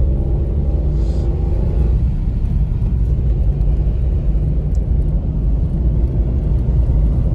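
Steady low rumble of a car's engine and road noise while driving, heard inside the cabin.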